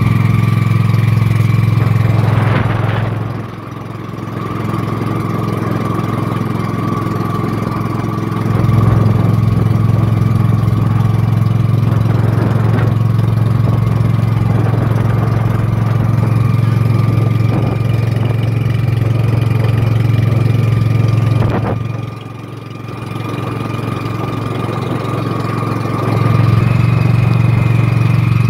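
Boat engine running steadily under way, with a strong low hum and a steady whine above it. Its note eases off twice, a few seconds in and again about two-thirds through, then picks back up.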